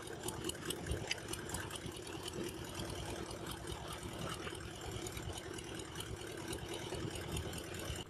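A fishing boat's engine running steadily at low speed, a constant drone with light clicking over it.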